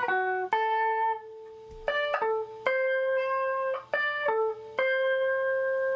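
Instrumental music: a simple melody of about eight held, steady notes that start and stop sharply.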